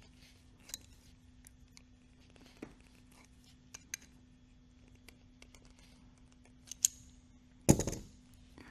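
Small metallic clicks and taps of a pipe-to-barb fitting being handled and threaded into a carburetor with hand tools, over a faint steady hum, with a louder clunk near the end.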